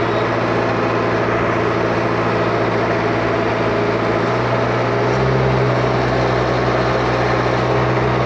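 Diesel engine of a JCB 4DX backhoe loader running steadily while the machine is driven. Its note changes about four seconds in and grows a little louder about a second later.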